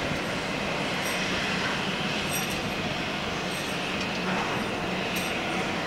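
Steady mechanical drone from a parked Boeing 737-300 at the gate, with short, faint, high-pitched chirps about once a second.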